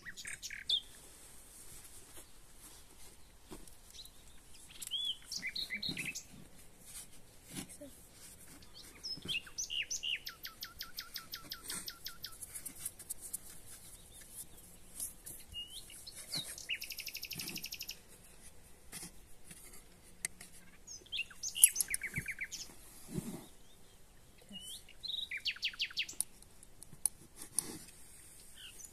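Songbirds chirping, with several rapid trills of quickly repeated notes. A few sharp knocks break in, the loudest about two-thirds of the way through.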